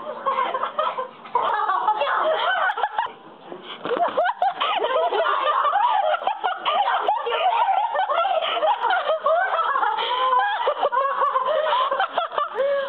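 Several girls laughing, giggling and shrieking in high voices, mixed with bits of excited talk, with a short lull about three seconds in.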